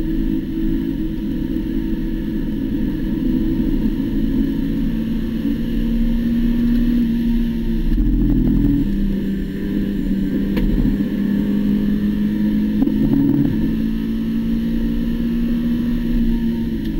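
Spec Miata's four-cylinder engine running hard at high revs in third gear, heard from inside the cockpit. The steady engine note wavers briefly about eight seconds in and again about thirteen seconds in.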